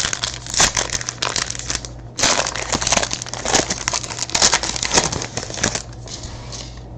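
Trading-card pack wrapper being torn open and crinkled by hand, a dense crackle. It breaks off briefly about two seconds in and dies down near the end.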